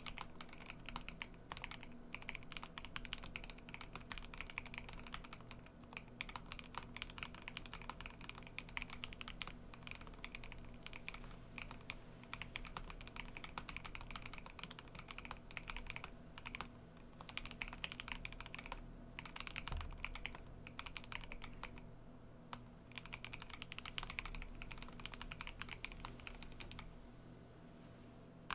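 Typing on an Epomaker EK68 gasket-mount 65% mechanical keyboard fitted with Epomaker Flamingo linear switches: a fast, continuous patter of keystrokes with a few short pauses in the second half.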